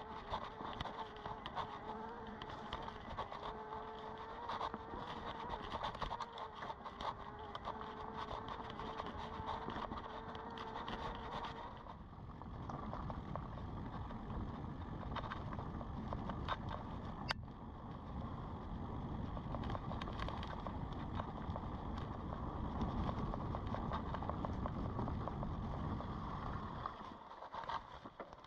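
Electric mountain bike's motor whining steadily under pedal assist over the rumble of tyres on a dirt trail, with many small rattles and clicks from the bike. About twelve seconds in the motor whine stops, leaving the tyre and wind rumble and rattles.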